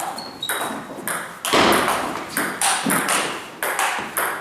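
Celluloid-type table tennis ball being hit back and forth in a rally: sharp clicks of the ball on rubber bats and bounces on the table, two or three a second, each followed by echo in the hall.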